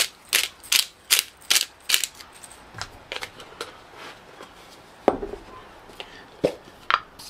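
Hand pepper mill being twisted to grind pepper, a regular clicking about two and a half times a second that fades out after about three seconds. A heavier knock about five seconds in and two more near the end.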